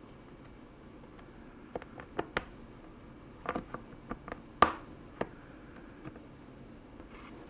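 Sharp plastic clicks and snaps from the HP Split tablet's case being pried open around its edge, its clips unsnapping. There are about a dozen between roughly two and five seconds in, and the loudest comes near four and a half seconds.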